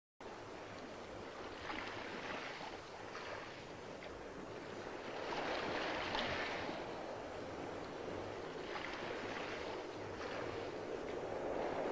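Sea and wind ambience of a sailing ship under way: a steady rush of wind and water that swells and ebbs every three to four seconds, like waves washing along the hull.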